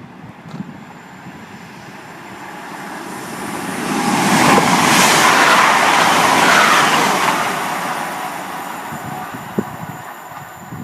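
A train passing through the station at speed: a rush of wheel and rail noise that swells to a peak around the middle and fades away.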